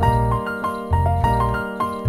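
Instrumental background music: a keyboard melody of short stepping notes over a low bass note pulsing about twice a second.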